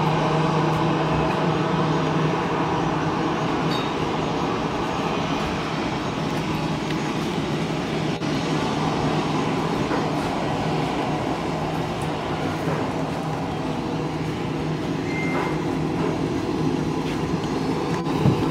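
Jet engines of a Cebu Pacific Airbus A320 running steadily as the airliner moves along the runway, an even rushing noise with a constant low hum underneath.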